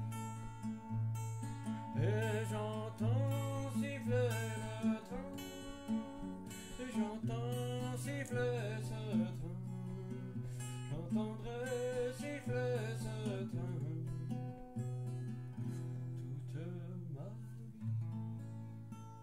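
Music: acoustic guitar accompaniment under a wavering melody line, from a song's closing bars, fading out near the end.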